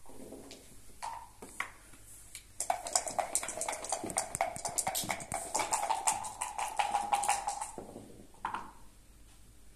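A few single clicks of backgammon pieces, then dice rattling rapidly in a dice cup for about five seconds, with a steady tone sounding under the rattle.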